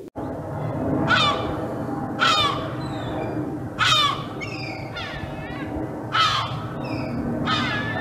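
Gulls calling: about five loud cries that fall in pitch, spaced a second or two apart, with fainter calls between them, over a steady background rush.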